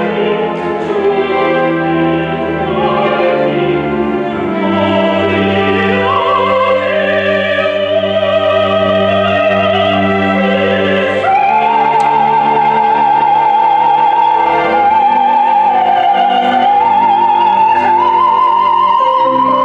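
A woman singing in operatic style with a wide vibrato, accompanied by an orchestra. About halfway through, her voice rises and holds long high notes.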